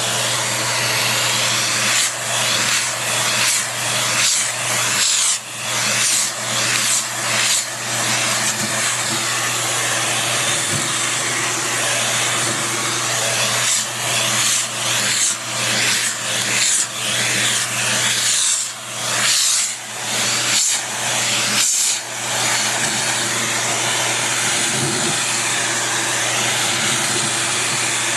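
Vacuum cleaner running on a Maltese dog's coat, its steady rush and hum dipping and recovering many times over the first twenty seconds or so, then running evenly.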